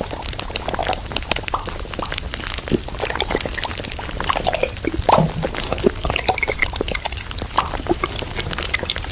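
Groceries being handled and put away in a fridge: a dense run of small clicks, knocks and packaging rustles, with some liquid sounds.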